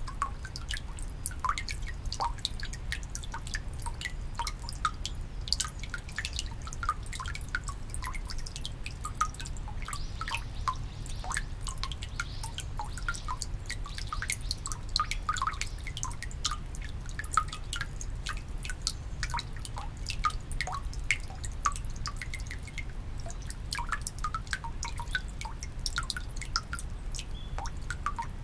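Water dripping into the stone basin of a Shinto shrine's temizuya (purification font) fed by a bamboo pipe: many short, irregular high plinks, several a second, over a low steady rumble.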